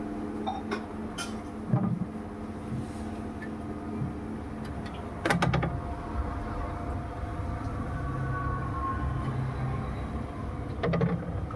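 Urban street background: a steady low traffic rumble and hum, broken by a few sharp clicks and a short loud rattle of clicks about five seconds in and again near the end.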